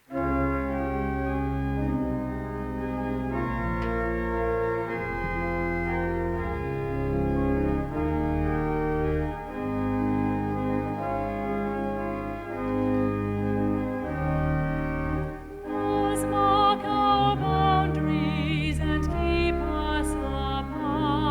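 Organ playing the introduction to a communion hymn: sustained chords over a deep pedal bass, changing every second or so. About 16 s in, a voice with a wide vibrato joins above it.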